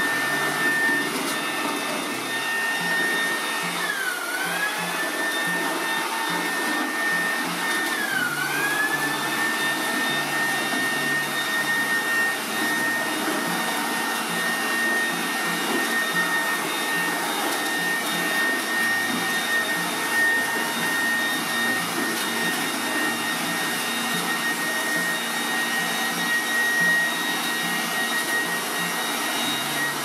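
Hyundai HP710-EB electric blower running in vacuum mode, sucking paper scraps off artificial turf: a steady high motor whine over rushing air. Twice, about 4 and 8 seconds in, the whine's pitch dips briefly and then climbs back.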